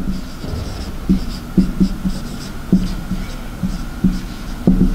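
Marker writing on a whiteboard: about ten short, squeaky strokes, roughly two a second, over a faint steady hum.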